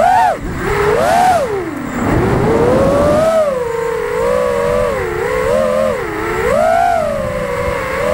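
FPV racing quadcopter's four brushless motors (T-Motor Pacer V3 2207 1750KV) spinning Gemfan VannyStyle 5136 props, giving a loud whine whose pitch rises and falls constantly with the throttle. The pitch dips low about two seconds in and climbs back, over a rush of air.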